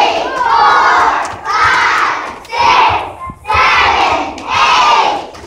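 A large crowd of young children shouting together in loud repeated bursts, about five or six, roughly a second apart.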